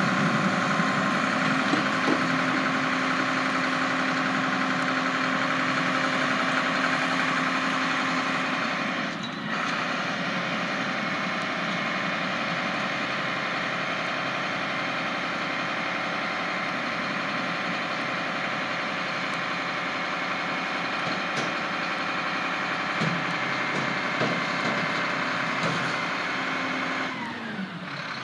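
Mack LR garbage truck running its hydraulics as the Curotto Can arm lowers the can from over the cab: a steady engine and hydraulic whine with a short dip about nine seconds in, and the pitch falls near the end as the engine winds down.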